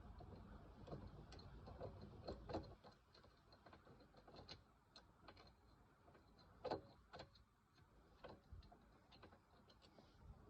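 Faint, irregular small clicks and light taps of hand tools and metal parts being handled, with two slightly louder knocks, one about two and a half seconds in and one near seven seconds.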